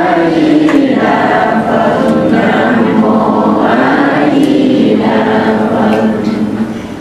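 Many voices chanting together in Buddhist style, monks and congregation holding long drawn-out notes that slowly glide in pitch. The chant fades near the end.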